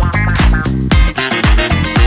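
Upbeat disco-funk background music with a steady kick-drum beat, about two beats a second.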